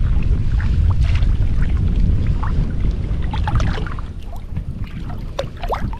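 Wind buffeting the microphone: a heavy low rumble that eases a little about four seconds in, with faint short sounds scattered over it.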